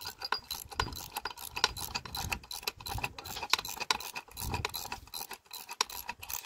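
Ratchet wrench with a 5/8-inch socket clicking in quick, uneven runs as it tightens lock nuts onto carriage bolts on a steel furrower.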